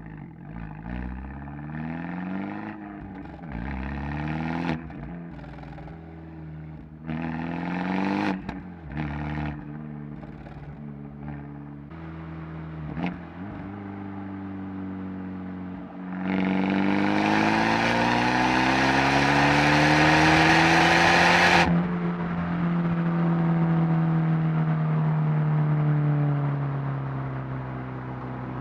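Abarth 124 Spider's 1.4-litre turbocharged four-cylinder, heard through its Monza exhaust from a mic at the rear of the car, pulling through the gears with a raspy note: short climbs in revs broken by quick shifts, then a long, loud pull rising in pitch. It cuts off sharply about three-quarters of the way through, and the engine note falls slowly as the car comes off the throttle.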